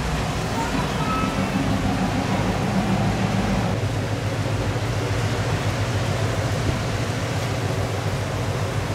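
Classic car engines running at low speed as they cruise by: first a 1956 Chevrolet, then, from about four seconds in, a 1957 Pontiac's V8, under a steady hiss of rain and wet boards.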